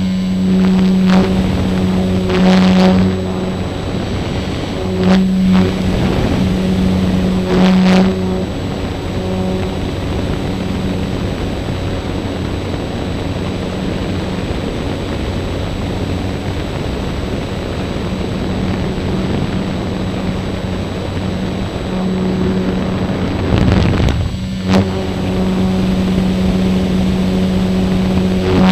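ParkZone Radian's electric motor and spinning propeller humming steadily, heard from a camera mounted on the plane, with air rushing past. The hum weakens through the middle stretch and comes back strongly near the end. A few short blasts of wind hit the microphone.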